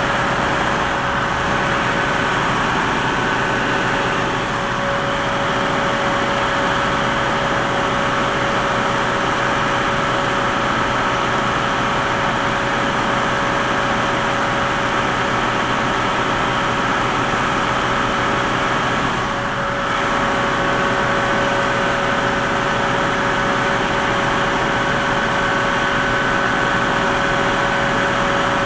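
Heavy diesel equipment running steadily, with a constant whine over the engine, dipping briefly about two-thirds of the way through.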